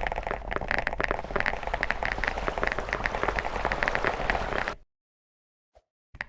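Dense crackling of many small rapid clicks from a chocolate bar and its wrapper being handled. It cuts out to silence about three-quarters of the way through, and a brief crackle comes just before the end.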